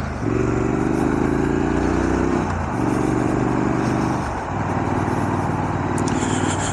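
Triumph Scrambler 900's parallel-twin engine accelerating through the gears, revs climbing and dropping at two upshifts about two and a half and four and a half seconds in, then pulling steadily, with wind noise over it.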